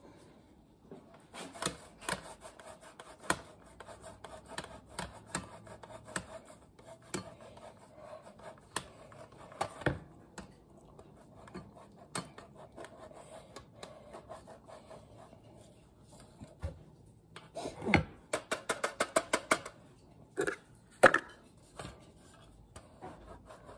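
Light rubbing, scraping and clicking of hands and utensils working over a baking pan while cheese is added, with scattered small ticks and a quick run of about eight ticks a second about three-quarters of the way through.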